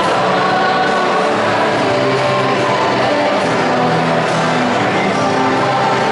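Choir singing a liturgical hymn in long held notes.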